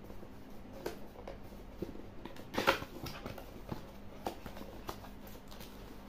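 Cardboard product box being opened by hand, its lid and flaps lifted and the paper-wrapped contents inside handled. It makes scattered light taps and rustles, with one louder scrape about two and a half seconds in.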